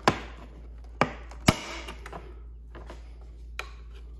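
Plastic clips of a truck tow mirror's glass backing plate snapping loose as the glass is pried off by hand: three sharp snaps in the first second and a half, the third the loudest, then a few fainter clicks.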